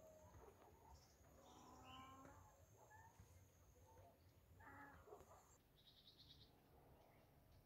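Faint outdoor rural ambience: scattered bird calls and a distant animal call with several pitched tones about two seconds in, over a low rumble. A thin steady high whine stops about five and a half seconds in, followed by a short, fast pulsing trill.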